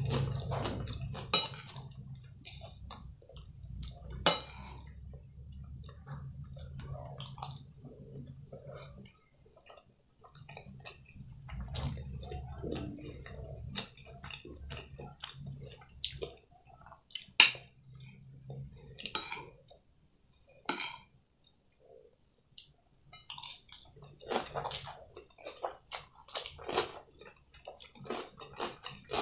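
A metal spoon clinks and scrapes against a ceramic plate of fried noodles and cucumber, with sharp clinks every few seconds. Between the clinks comes close-miked chewing.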